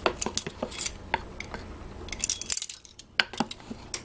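A measuring spoon clicking and tapping against a stainless steel mixing bowl as cinnamon is spooned onto flour: a string of light, irregular clinks.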